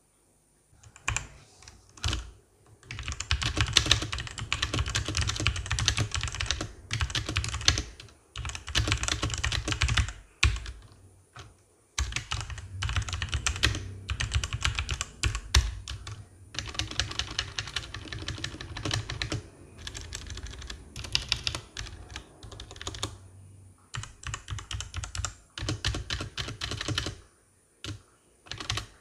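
Cosmic Byte CB-GK-18 Firefly mechanical keyboard with Outemu red switches being typed on fast in bursts of clacking keystrokes, with short pauses between runs and single key presses near the end. Foam added inside the case leaves the letter keys sounding the same but makes the larger keys quieter and cuts the space bar's reverb a little.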